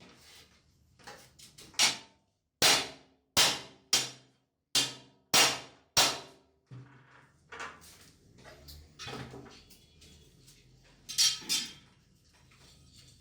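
A hammer striking metal: a quick series of about seven sharp, ringing blows, then a few lighter knocks, then two more sharp blows close together near the end.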